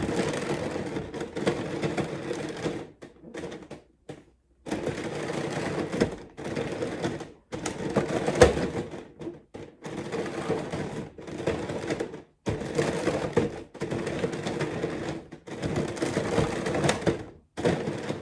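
Layers of a giant 3x3 Rubik's cube being turned in quick runs of moves, clacking and scraping in spurts of a second or two with short silent breaks, as the last-layer algorithm is worked through.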